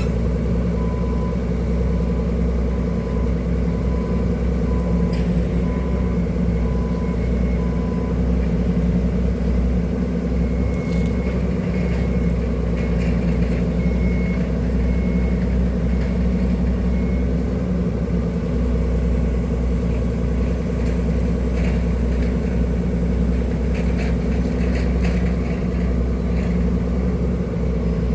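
Excavator diesel engine running steadily with a low rumble. Over it, a short electronic beep repeats at an even pace through the first third, then a higher-pitched beep repeats through the middle.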